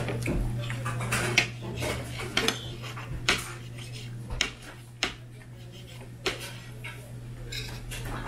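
A metal spoon scraping and clinking against a ceramic plate while scooping fried rice, with many sharp, irregular clinks. A steady low hum runs underneath.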